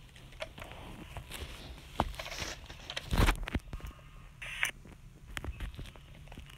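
Sound effects of armored dinosaurs struggling at close quarters: a busy run of cracks, scrapes and knocks over a low rumble, with one heavy thump about three seconds in.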